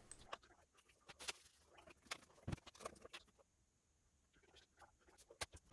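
Faint, scattered small clicks and taps of small parts being handled on a workbench, with a quiet pause in the middle.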